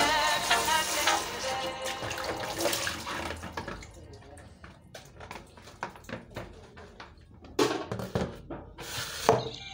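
Water splashing in a kitchen sink as a plastic basin is rinsed and handled, with louder splashes in the last couple of seconds. Pop background music plays over the first few seconds.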